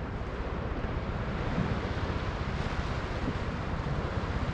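Wind buffeting the microphone in a steady, rumbling rush, with no other clear event.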